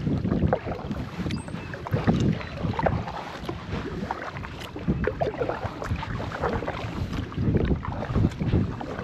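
Wind buffeting the microphone while a kayak is paddled across open lake water, a gusty rumble that swells and drops, with a few light clicks and knocks.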